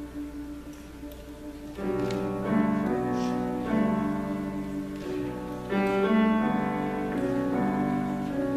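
Treble choir singing sustained, layered chords over a held low note, swelling louder as new parts enter about two seconds in and again near six seconds.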